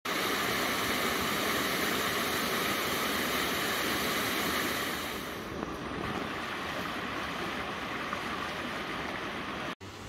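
Shallow creek running over rocks, a steady rush of water that is louder and brighter for the first five seconds, then softer. It cuts off briefly near the end.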